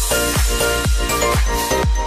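Background electronic dance music with a steady kick-drum beat.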